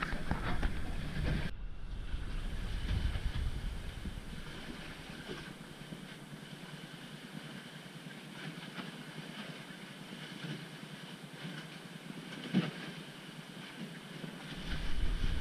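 Wind and sea noise heard from inside a small sailing proa's cabin as it beats upwind through steep chop, louder for the first second and a half. A single sharp thump comes about twelve seconds in.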